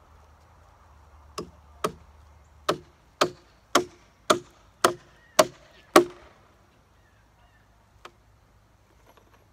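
Hammer driving a nail into a reclaimed-wood shed frame: nine strikes about half a second apart, each louder than the last, then one light tap about two seconds later.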